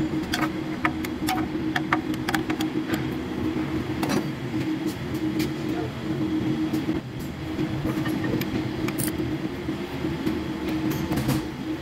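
A steady low mechanical hum with scattered sharp clicks and taps from a socket ratchet on the transmission oil pan bolts.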